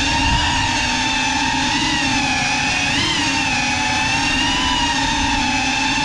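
Brushless motors and ducted propellers of a GEPRC Cinelog 35 6S cinewhoop FPV drone, heard from the drone's own camera, whining at a nearly steady pitch with a brief pitch rise about three seconds in.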